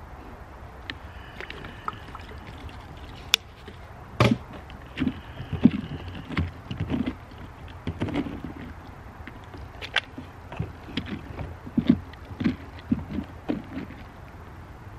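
A tool scraping and knocking inside a hollowed pumpkin as the seeds and pulp are scooped out: irregular scrapes and knocks starting about four seconds in.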